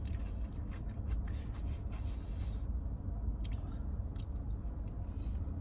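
A person chewing a mouthful of food close to the microphone: small wet clicks and smacks, busiest in the first half, over a steady low rumble.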